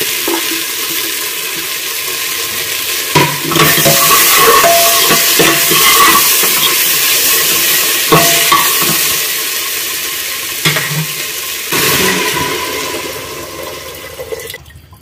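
Vegetables and spices sizzling in hot oil in an aluminium pressure cooker pot, stirred with a spatula that knocks and scrapes against the metal. Near the end water is poured in and the sizzle dies down.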